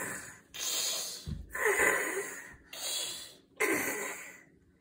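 A young child imitating a hyena with a series of breathy vocal bursts, four in all, each about a second long.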